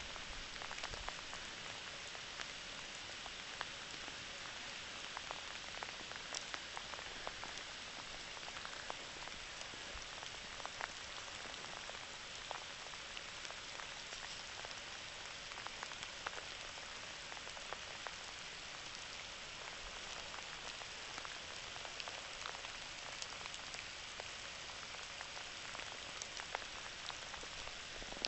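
Steady rain falling, an even hiss with many small separate ticks of drops landing close by.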